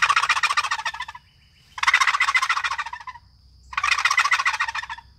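Long box turkey call shaken rapidly back and forth, its paddle rattling against the box's rails to imitate a wild turkey's gobble. Three gobbles in a row, each a little over a second long with short pauses between.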